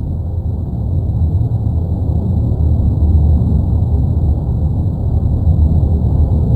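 Continuous deep rumble of the erupting La Palma volcano, a steady low roar that grows slightly louder about a second in.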